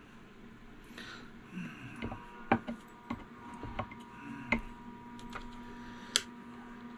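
Scattered sharp metallic clicks and taps, about half a dozen, as a screwdriver, a lead-weight mold and cast lead weights are handled on a workbench, over a faint steady hum.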